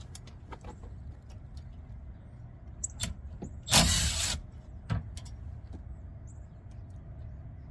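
Right-angle impact wrench running in one short burst about four seconds in, loosening a rear brake caliper bolt, with light clicks of tools on either side of it.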